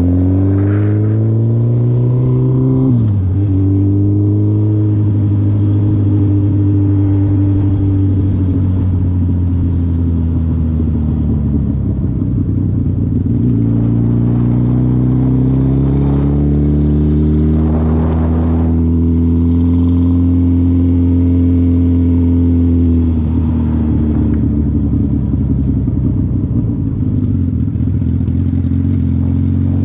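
2020 Suzuki Hayabusa's inline-four engine heard from the rider's seat during a low-speed ride. It climbs in pitch, then drops sharply about three seconds in as it shifts up. It holds a steady low speed, eases off and picks up again midway, and drops once more near the end.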